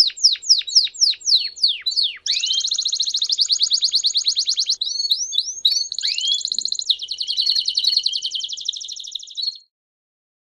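Domestic canary singing: a run of quick repeated downward-sweeping notes, then long, very fast trills that change pattern several times, stopping near the end.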